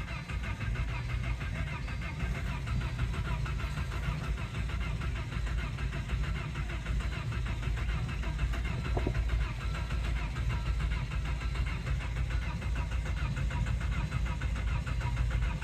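Volvo 850's five-cylinder engine cranking steadily on the starter without catching: a no-start, even with a newly fitted crankshaft position sensor.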